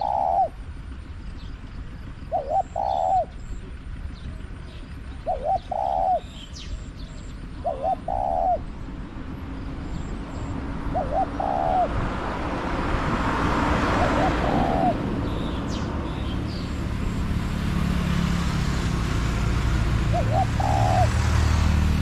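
Spotted dove cooing its two-part phrase about seven times, every two to three seconds, with a longer gap near the end. A vehicle's noise swells in the background from about halfway.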